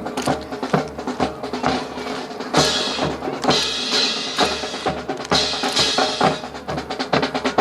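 Drum-led music with snare and bass drum, many crisp strikes a second over sustained pitched tones.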